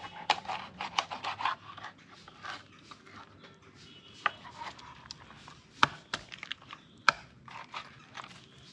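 Kitchen knife cutting raw chicken on a wooden cutting board: scattered taps and clicks of the blade against the board, with two sharper knocks in the second half.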